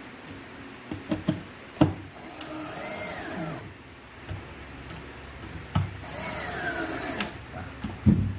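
Electric drill driving screws into solid wood in two short runs, its pitch rising and falling, with several sharp knocks of wooden boards being handled around them.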